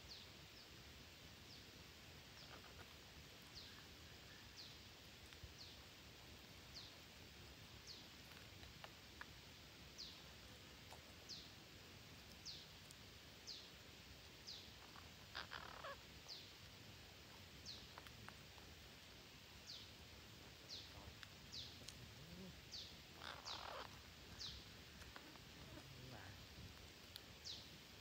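Faint forest bird calls: a high, short downward chirp repeated about once a second, and twice in the second half a harsher squawk from the parakeets feeding on the ground.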